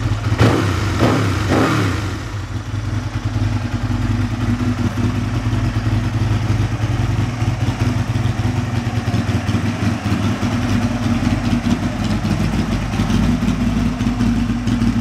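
Aprilia RSV 1000 Mille's 998 cc 60-degree V-twin engine blipped three times in quick succession about a second in, each rev rising and falling straight back, then idling steadily.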